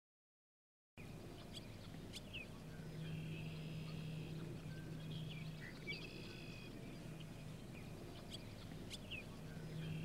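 A flock of tree swallows calling, with repeated short chirps and twitters over a low steady hum. The sound cuts in about a second in, after silence.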